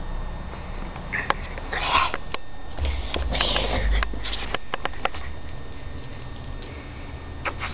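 A Pekingese dog sniffing in a few short noisy bursts as it noses and tugs at a fabric mat, with scattered sharp clicks.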